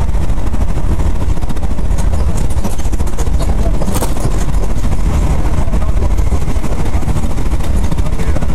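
Steady rumble and rattle of a passenger train running at speed, heard from inside the carriage. There is one sharp click about four seconds in.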